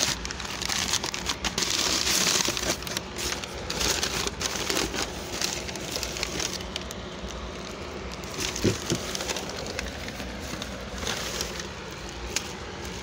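Crumpled packing paper and a plastic bag rustling and crinkling as they are handled and pulled out of a parcel, loudest in the first few seconds.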